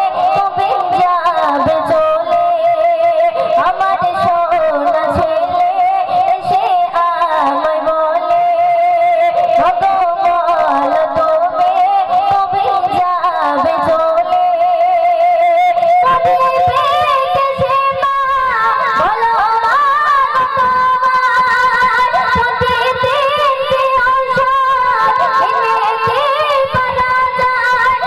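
A young girl singing a Bengali gojol (Islamic devotional song) into a microphone, her voice held in long, wavering, ornamented lines. About sixteen seconds in the melody moves to a new phrase in a different register.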